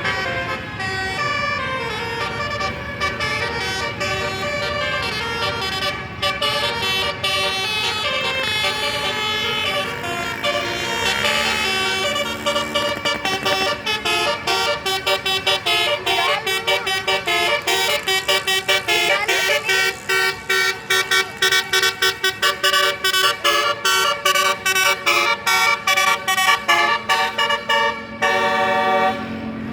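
Bus's Basuri telolet horn, a multi-tone air horn, playing a melody. It starts with held notes, then plays a long run of quick short notes that stop shortly before the end.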